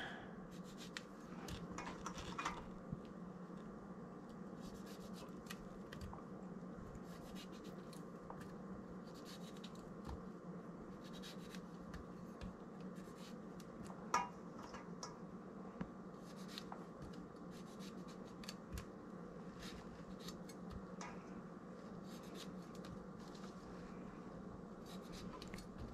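A chef's knife halving small tomatoes held in the hand, the pieces dropping into a wooden mortar: faint scattered clicks and scrapes, with one sharper knock about 14 seconds in, over a low steady hum.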